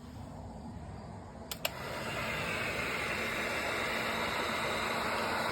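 Heat gun clicked on about a second and a half in, then its fan blowing with a steady hiss.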